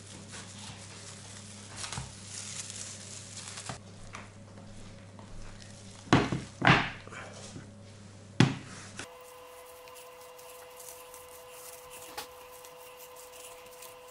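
Cling film and a silicone mold being handled on a tabletop: a low steady hum with a few short rustles and thumps, the loudest three coming in quick succession about six to eight and a half seconds in.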